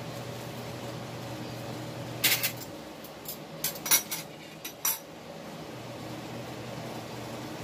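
A serving utensil clinking and scraping against a ceramic plate as vegetable filling is spooned onto a lumpia wrapper: a cluster of sharp clinks over about three seconds, the loudest about four seconds in. A low hum runs in the background.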